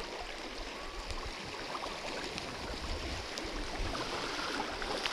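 Shallow river current flowing steadily, with a few faint ticks.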